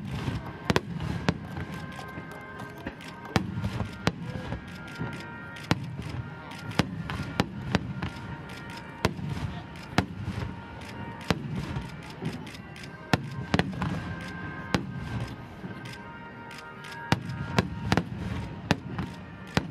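Starmine fireworks barrage: aerial shells bursting in rapid succession, with sharp bangs several times a second over a continuous low rumble of booms.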